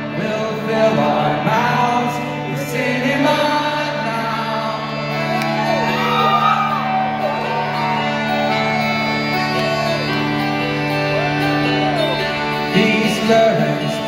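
Live band playing a song's introduction in a large hall: a steady held low drone with acoustic guitar, and audience whoops rising and falling over it. Near the end the drone stops and the full band comes in.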